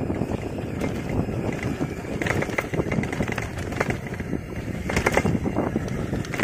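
Bicycle clattering and rattling as it rides over a bumpy, potholed lane, with steady tyre noise and many small knocks, a heavier cluster of jolts about five seconds in.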